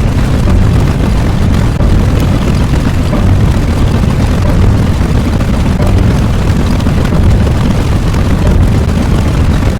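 A loud, steady low rumble, even throughout with no separate blasts or strikes.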